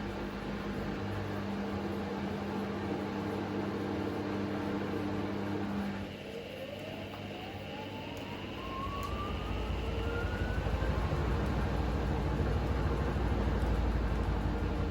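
Hoover H Wash 300 washing machine with a heavy bedding load running with steady low hums; about six seconds in the sound dips, then the motor whine rises steadily as the drum speeds up into its spin. A low rumble builds and grows louder as the drum gains speed, on a spin the owner calls very unbalanced.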